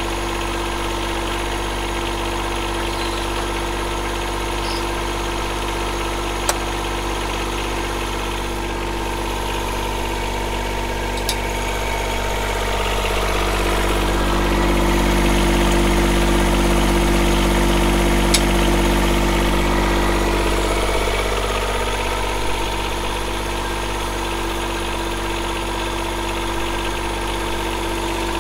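John Deere 1025R compact tractor's three-cylinder diesel engine idling steadily. It grows louder for several seconds in the middle, then settles back. A few light clicks are heard over it.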